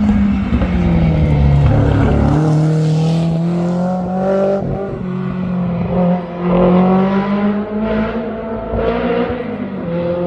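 Historic racing car engine running hard, its pitch falling at first, then climbing and dropping several times as it revs through gear changes.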